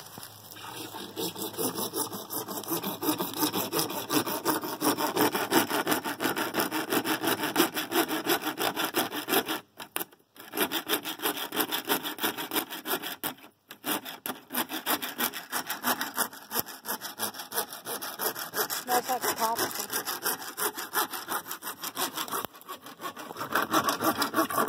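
Small hand saw cutting through PVC pipe with quick back-and-forth strokes, stopping briefly twice, about ten and fourteen seconds in.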